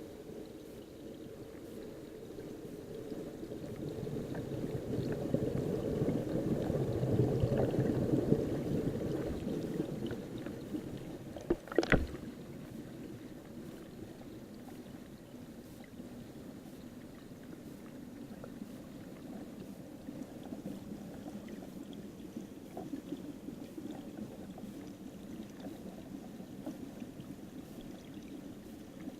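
Muffled rush of river water heard underwater through an action camera's waterproof housing, swelling louder from about four to ten seconds in. A single sharp knock comes about twelve seconds in.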